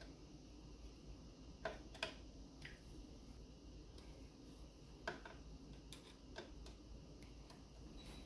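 Quiet handling noise: a handful of small, irregular clicks and taps as wires, cables and plastic connectors are fitted by hand on the engine.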